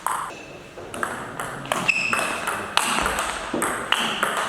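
Table tennis ball being hit back and forth in a rally, a sharp tick of ball on bat and table about every half second.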